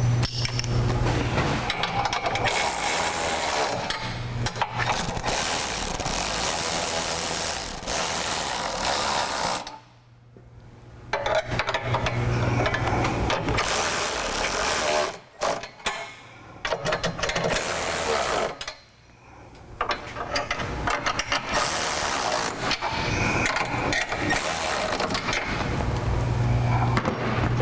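A ratchet wrench tightening the bracket nuts and bolts of a side step, working in long runs with a few short pauses between fasteners.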